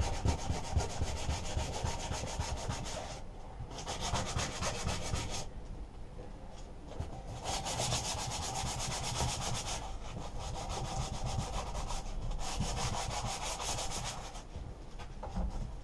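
Sandpaper rubbed by hand over a lawnmower engine's sheet-metal cover: fast scratchy strokes in spells of a few seconds with short pauses between. The old paint and rust are being sanded back to prepare the metal for primer and spraying.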